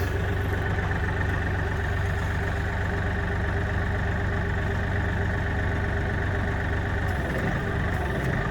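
Tractor engine idling steadily, with a slight change in its low hum about seven seconds in.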